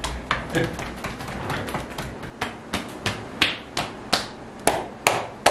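Massage therapist's hands striking a man's back in quick percussive massage strokes: a run of sharp slaps about three a second, the last few louder.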